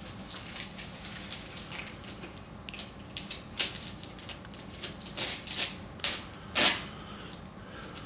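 Wrapping paper on a gift box rustling and tearing as it is ripped open by hand, in short crackling rips that grow louder from about halfway through, the loudest near the end.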